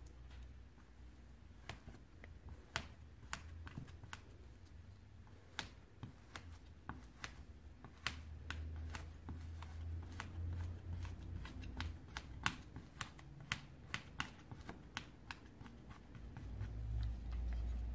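Steel palette knife cutting and pressing through frozen acrylic paint: a run of sharp crackles and snaps as the frozen paint breaks into shards, coming faster in the second half, over a low rumble of the knife pressing down.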